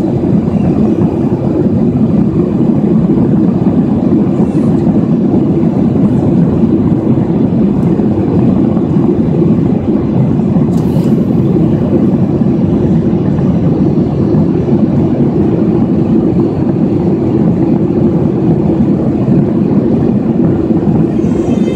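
Steady low roar inside a jet airliner's passenger cabin in flight: engine and airflow noise, loud and unchanging.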